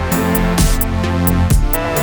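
Background music: electronic track with a steady beat of about two strokes a second over held tones.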